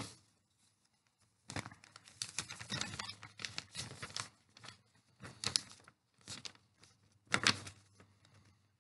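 A sheet of lined notebook paper rustling and crinkling as it is folded and handled. The sound comes in irregular bursts starting about a second and a half in.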